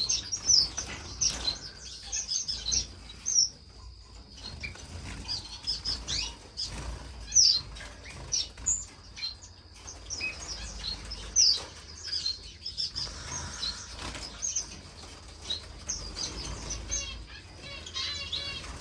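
Captive finches chirping with many short, high calls, with wings fluttering among them; a quick run of repeated notes comes near the end.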